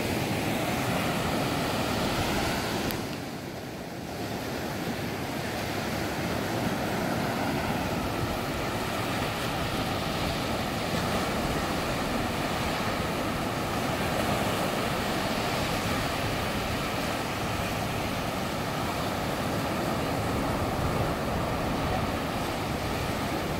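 Gulf surf breaking and washing up onto a sandy beach, a steady rushing wash, with wind rumbling on the microphone. The sound drops briefly about three seconds in, then carries on as before.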